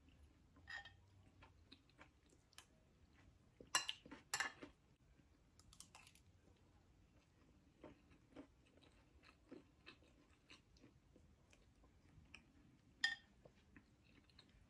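A person eating spoonfuls of cooked quinoa: soft chewing with scattered small clicks, and a few sharper clinks of a metal spoon on a ceramic bowl, two close together about four seconds in and one near the end.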